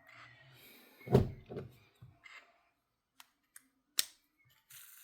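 LEGO plastic pieces being handled and pressed together: a couple of soft thunks about a second in, a few small ticks, then a sharp, crisp snap about four seconds in as a tire piece clicks into place.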